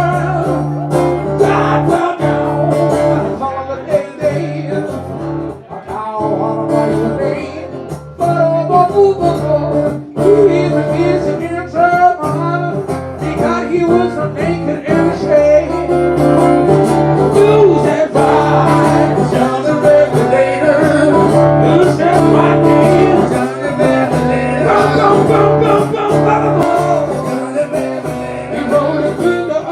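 Blues played on guitar, plucked and strummed in a passage with no sung words, over a steady low note.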